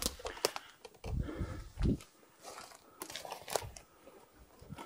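Footsteps on the forest floor: intermittent crunching of dry leaves and twigs underfoot, with a few dull thumps.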